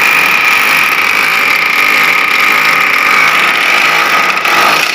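Electric power tool starting abruptly and running steadily at full speed: a high motor whine over a rough rasping noise.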